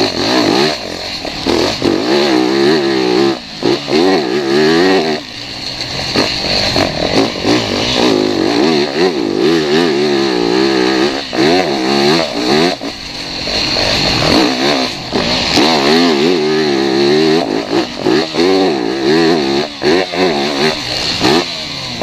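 Motocross bike's engine revving hard as it is ridden around a dirt track. The pitch climbs and falls over and over with throttle and gear changes, and it drops briefly a few times where the throttle is shut off, heard close up from the rider's goggle camera.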